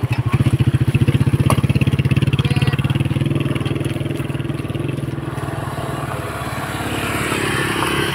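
Motorcycle engine running close by with a rapid, even exhaust beat, loudest in the first few seconds and then fading as a motorcycle-and-sidecar tricycle pulls away over gravel. Another motorcycle engine keeps running underneath and gets a little louder near the end.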